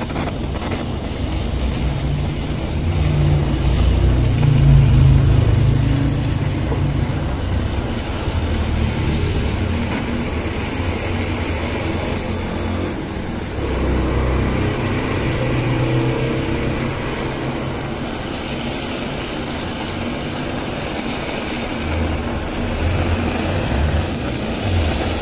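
Handheld kitchen blowtorch flame running steadily, browning and charring the grated quick-melt cheese on top of a pasta bake; a little louder for a few seconds near the start.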